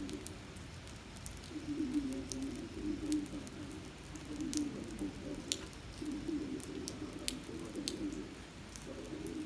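Rain falling on a wet parking lot, an even hiss broken by sharp ticks of single drops landing close by. Under it a low, wavering sound comes in short phrases every second or two.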